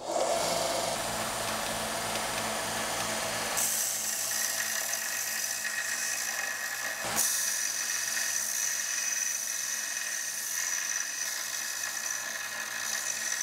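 Bench belt grinder with a 40-grit belt starting up and running with a steady hum. From about four seconds in, a 4140 steel chisel blank is pressed against the belt, adding a steady grinding hiss and a high whine as the struck end is rough-ground to a dome.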